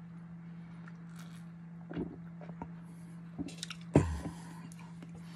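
Mouth noises of a man eating and drinking: small clicks and swallowing sounds as he drinks from a bottle and chews, then about four seconds in a short, loud grunt that falls in pitch. A steady low hum runs underneath.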